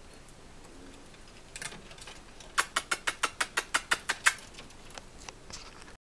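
Male cockatiel making kissing sounds that mimic a person's: after a single softer one, a quick run of about a dozen sharp kissing clicks comes at about seven a second, then a few faint ones near the end.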